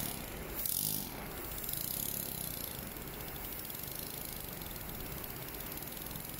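KACIO LS1-14 model single-cylinder reciprocating steam engine running, a steady fast mechanical rattle from its piston, crosshead and valve gear, with a brief louder burst of hiss a little under a second in.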